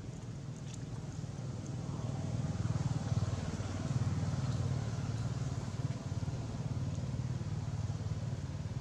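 Low engine rumble of a motor vehicle, building over the first three seconds and then holding steady.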